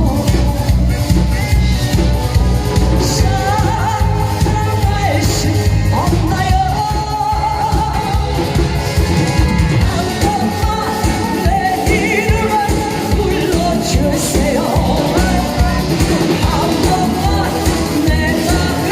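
Live singing through a microphone over a loud backing track with a steady drum beat.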